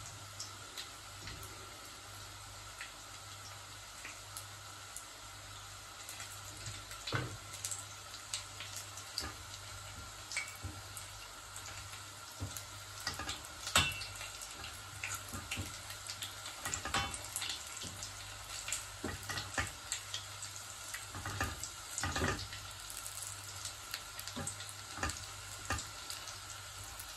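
Arancini (breaded rice balls) deep-frying in hot oil in a small stainless-steel saucepan: a steady sizzle with scattered pops and crackles that grow busier about six seconds in. A few sharp clicks come as tongs turn the balls in the pan.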